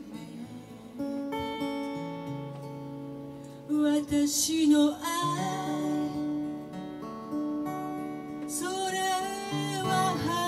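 Live ballad: acoustic guitar accompaniment with a woman singing, her phrases coming in about four seconds in and again near the end with a slight vibrato.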